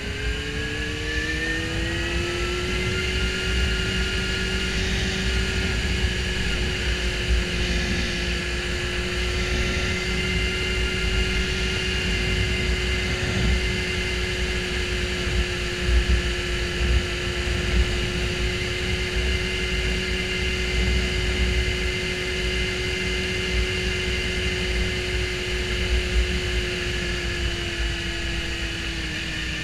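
Suzuki GSX-R750 inline-four engine pulling up through the revs for the first couple of seconds, then holding a steady cruising drone, easing off slightly near the end. Wind rumbles over the helmet-mounted microphone.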